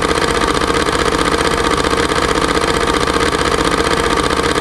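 A loud, steady engine-like drone with fast, even low pulsing, starting abruptly and holding constant.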